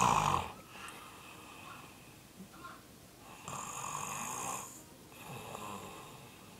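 A sleeping man snoring loudly, in three snores: a loud one right at the start, a longer one about three and a half seconds in, and a softer one near the end.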